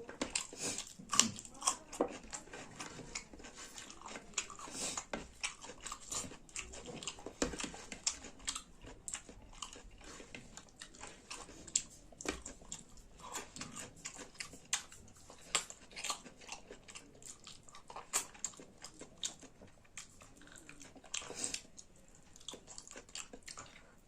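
Close-miked chewing and wet mouth noises of someone eating rice with saag and dal, with many irregular lip smacks and clicks.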